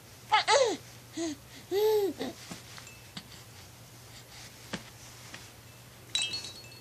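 A young baby cooing: three or four short coos that rise and fall in pitch in the first two and a half seconds. Shortly after six seconds a brief chiming jingle sounds.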